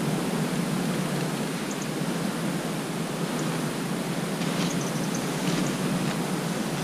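Steady wind noise rushing over the microphone, with a few faint, short high ticks in the second half.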